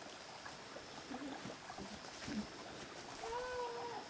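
A goat bleating faintly once, a short call about three seconds in, after a few soft small sounds.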